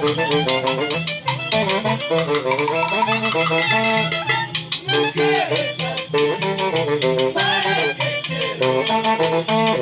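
Live Andean brass-and-reed band music: saxophones, clarinet and trumpet playing the melody over timbales, cymbal and a metal güiro scraping a steady, quick beat. Several band members sing along.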